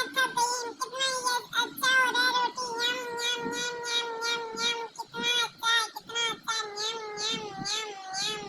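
A pet animal's long, drawn-out crying calls, each held on one steady pitch for a few seconds with short breaks between them. The pet is begging to be fed.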